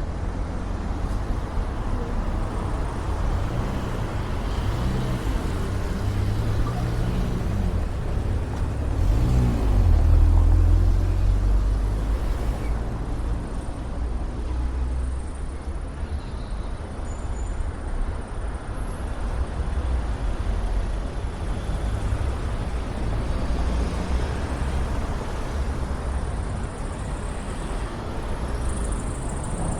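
Road traffic: vehicles driving past with a steady low rumble. The sound swells about ten seconds in as a vehicle passes close, its pitch briefly bending.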